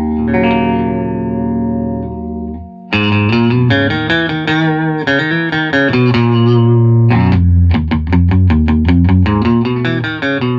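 Electric guitar, a 1964 Fender Jaguar, played through a newly built Modulus Supa Deluxe amp kit (the 20-watt 6L6 version) into a Blackface Bassman 2x12 speaker cabinet, on the amp's first playing test. A held chord rings and fades, breaks off nearly three seconds in, and is followed by picked chords and notes. About halfway through, the playing turns to quick, even chord stabs.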